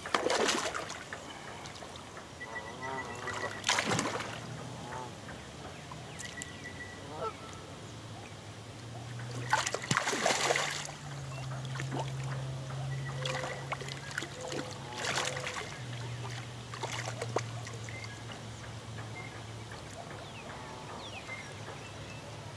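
Water splashing in several separate bursts, the loudest about ten seconds in, as a hooked carp thrashes at the surface while it is brought in. A low steady hum runs through the middle stretch.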